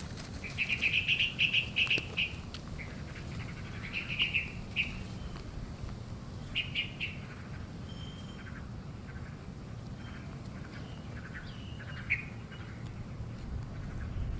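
Black-crested bulbuls chirping in quick trilled bursts, loudest in the first two seconds, again around four and seven seconds, then softer scattered chirps.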